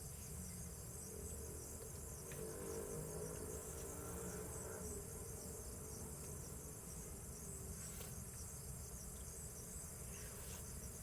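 Crickets and other night insects chirring steadily in a continuous, high-pitched pulsing chorus.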